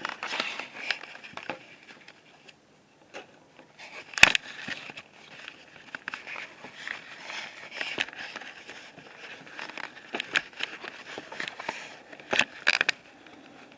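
Handling noise close to the microphone: irregular rustling and scraping with sharp clicks and knocks, the loudest about four seconds in and a pair near the end, as the camera is fiddled with and fastened.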